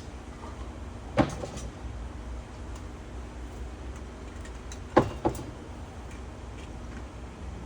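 A sharp knock about a second in, then two more knocks close together about five seconds in, over a steady low rumble.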